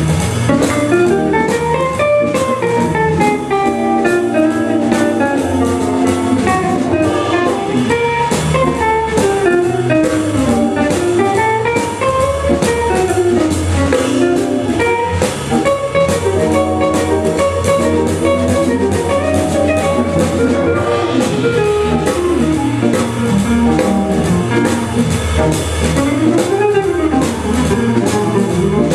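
Jazz organ trio playing live: electric guitar, organ and drum kit. A quick, winding melody line runs over a low bass line, with steady cymbal strokes.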